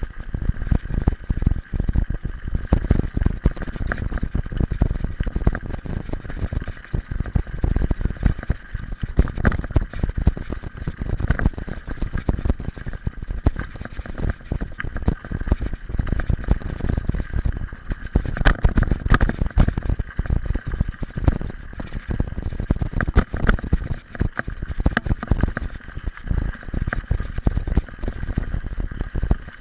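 Mountain bike rolling over a loose gravel lane, picked up by a camera mounted on the handlebar: the tyres crunch on the stones and the bike rattles continuously, over a low wind rumble.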